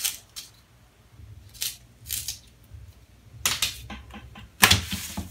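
A couple of scraping strokes of a pencil being turned in a small handheld sharpener, then the pencil and clear plastic rulers scratching and clattering on kraft paper, loudest near the end.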